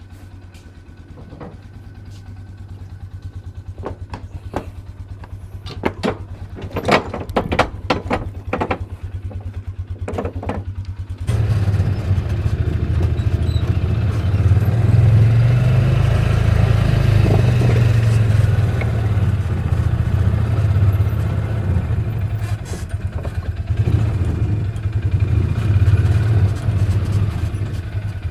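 Side-by-side utility vehicle's engine running with a steady low throb, with a run of sharp clanks and knocks in the middle. About eleven seconds in, the engine suddenly gets louder and stays loud.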